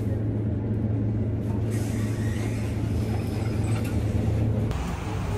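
A steady low hum with a rushing noise over it, like a lift car in motion. Near the end it cuts abruptly to a lighter, different background noise.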